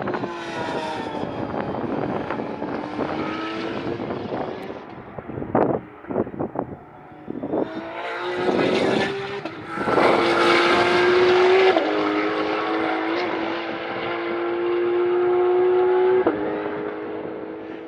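GT race car engines at speed, revving hard as cars pass. A burst of sharp pops comes about halfway through. Then one car accelerates away, its engine note stepping down with each upshift.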